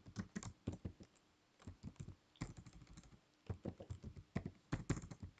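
Computer keyboard being typed on: a run of light key clicks in irregular bursts, broken by two short pauses.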